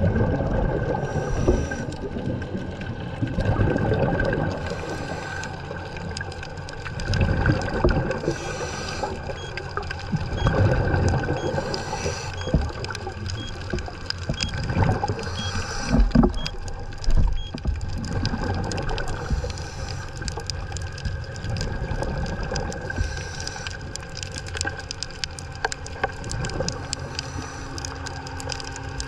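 Underwater sound through a camera housing: scuba divers' exhaled bubbles gurgling in bursts every three to four seconds, over a constant low rumble and a faint steady whine.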